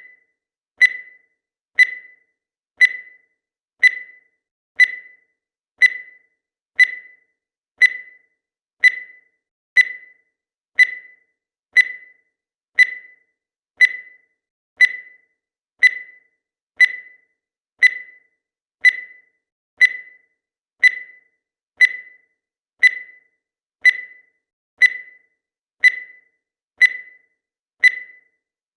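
Countdown timer's electronic beep sounding once every second, each one a short high blip that dies away quickly.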